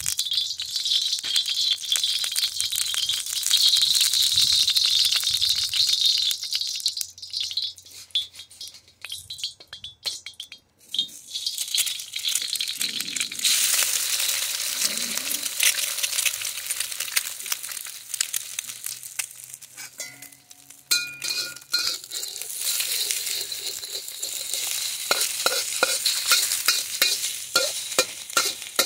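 Hot oil and a frying egg sizzling in a wok, with a loud steady hiss that drops away briefly about eleven seconds in. Near the end a metal wok spatula scrapes and clicks against the wok in quick strokes as the egg is scrambled.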